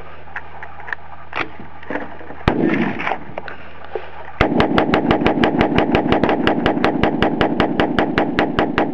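AR-15 rifle firing a long, rapid string of shots, about six a second, starting about four seconds in. Before it there is a steady low hum with a few scattered clicks and knocks.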